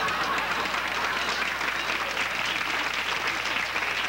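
Audience applauding steadily after a sitcom punchline.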